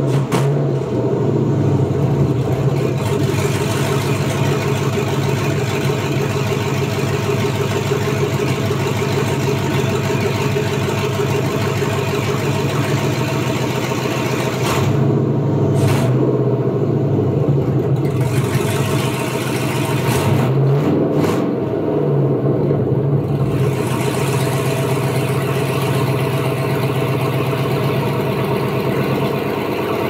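LQ4 6.0-litre LS V8 running steadily, with a couple of brief rises and falls in revs around the middle.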